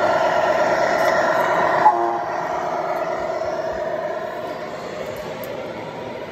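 Electronic diesel-engine sound from RC scale trucks' sound modules, a steady droning hum through small speakers. A short click comes about two seconds in, and the drone then turns quieter.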